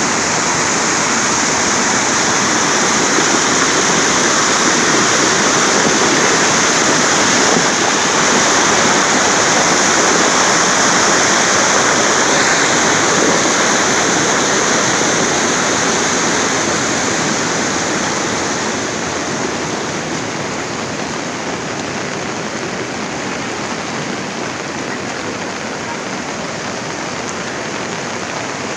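Floodwater rushing loudly and steadily, as from a swollen river in spate; the sound drops a little about two-thirds of the way through.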